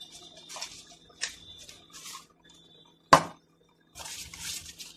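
Paper and a cardboard biscuit carton being handled on a stone countertop: several short rustles, one sharp knock about three seconds in, then more rustling near the end.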